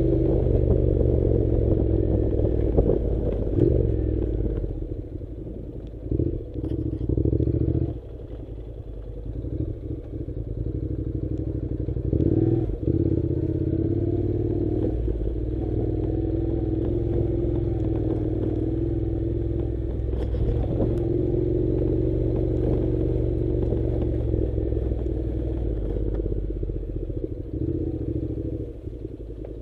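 Honda NC700 motorcycle's parallel-twin engine running at a steady engine note while being ridden on a dirt track, easing off for a couple of seconds about a third of the way in. A few short knocks and rattles from the bike over the rough ground.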